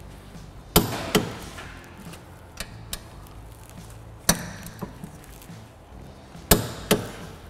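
Torque wrench with a 17 mm socket clicking sharply as the rear brake caliper bracket bolts reach 79 foot-pounds. There are five clicks: a pair about a second in, one near the middle, and another pair near the end.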